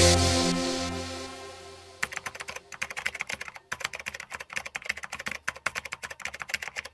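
An electronic music sting dying away over the first two seconds, then rapid, irregular computer-keyboard typing clicks, several a second, stopping just before the end.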